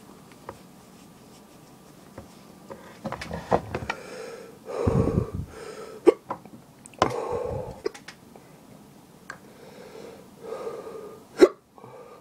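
A man hiccupping and blowing out hard breaths while the heat of a Brainstrain superhot chili pepper burns his throat. Several short, sharp hiccups come between longer loud exhales.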